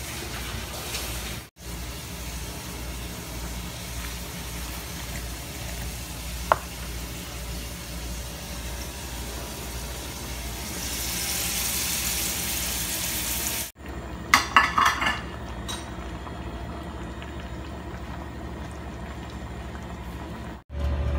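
Kitchen cooking noise: a steady hiss over a low hum, louder for a few seconds past the middle, then a quick rattle of metal cookware clinks. The sound cuts out briefly three times.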